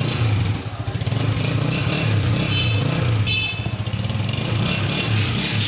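Honda CG125's single-cylinder four-stroke engine running with a steady throb. It briefly drops in loudness twice, about half a second in and again around three and a half seconds in.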